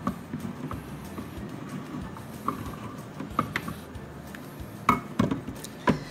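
Clinks and knocks of a metal espresso portafilter being handled and fitted into the group head of a Breville espresso machine: scattered sharp taps, the loudest knocks near the end.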